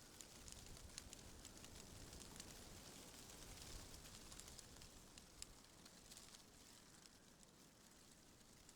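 Faint wind through tree leaves: a soft low wind rumble with a light, crackly rustle of many small ticks scattered throughout.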